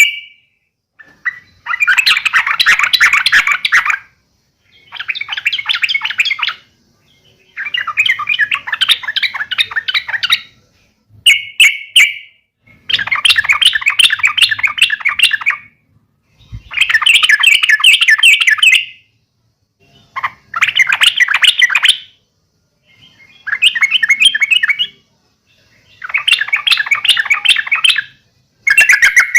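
Young yellow-vented bulbul (trucukan) giving its fighting call: about ten loud bursts of rapid chattering notes, each burst lasting a second and a half to two seconds, with short pauses between.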